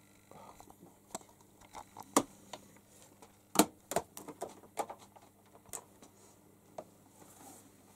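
Irregular clicks, taps and light rustles of handling and movement: about a dozen short sharp ticks and knocks, the loudest about two seconds and about three and a half seconds in.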